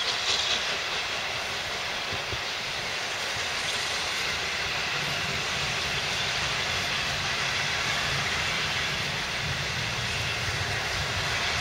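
Peppercorn A1 Pacific steam locomotive 60163 Tornado running light with a steady hiss of steam. A low rumble builds from about five seconds in as the engine draws nearer.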